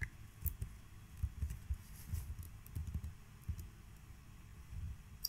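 Typing on a computer keyboard: a run of quiet, irregular keystrokes for about three and a half seconds, then a single sharp click near the end.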